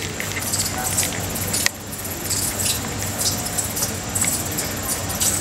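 Experimental electronic noise from a homemade circuit-board instrument: a dense crackling, jangling texture of small clicks and high hiss over a steady low hum. A sharp click comes about a second and a half in, and the sound briefly drops after it.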